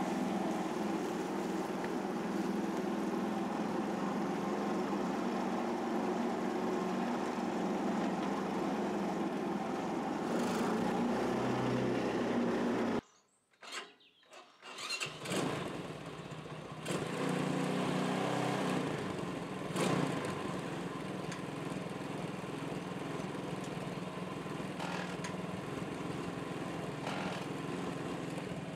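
Motorcycle engine swapped into a small vintage tractor, running steadily as the tractor drives along. About halfway in the sound drops out for about two seconds, then the engine runs on, quieter.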